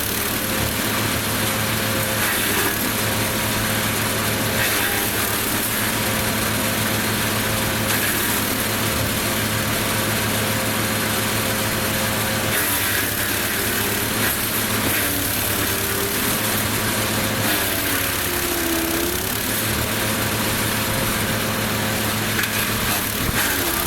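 Lumag Rambo HC15 wood chipper's engine running steadily as laurel and Leylandii conifer branches are chipped, with a dense shredding hiss and brief crackles through the run.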